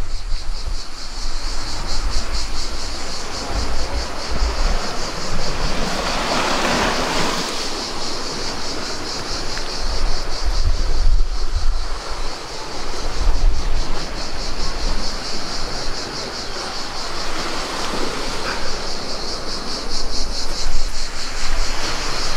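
Sea waves washing onto a rocky shore, with wind gusting on the microphone.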